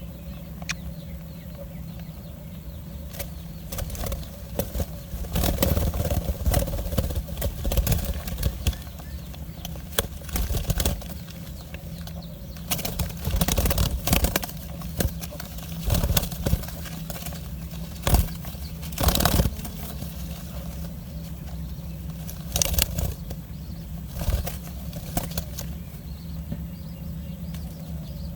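Irregular bursts of rustling and flapping, likely an adult bird's wings and movement at the nest, with a few sharp clicks and a steady low hum underneath.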